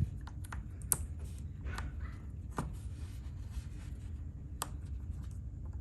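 Small magnets and metal parts of a fidget slider clicking as they are handled and set in place: a few sharp, scattered clicks over a low steady hum.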